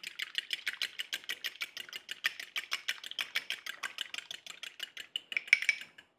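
A fork whisking an egg wash of egg and water in a small dish, its tines clicking against the bowl in a fast, even rhythm of about eight or nine strokes a second. A few louder clinks come just before it stops near the end.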